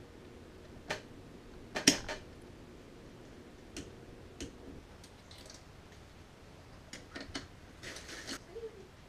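Scattered light metallic clicks and taps as the reverse idler shaft and its holder are fitted into a Honda BAXA automatic transmission's aluminium case. The sharpest is a quick double click about two seconds in.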